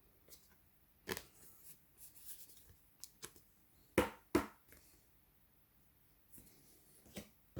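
Trading cards being handled on a table: a few light taps and flicks, with two sharper clicks close together about four seconds in.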